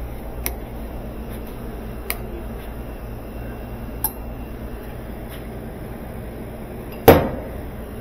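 Tools and a drill press being handled: three light clicks in the first half, then one sharp knock about seven seconds in, over a steady low hum.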